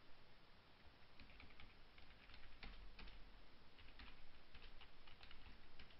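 Faint typing on a computer keyboard: irregular keystroke clicks that start about a second in.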